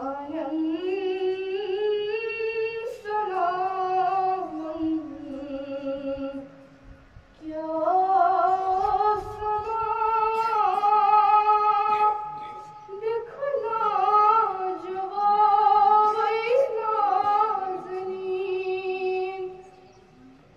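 A girl's solo voice singing a Kashmiri naat, a devotional song in praise of the Prophet, in three long phrases with sliding ornamented notes and brief breaths between them.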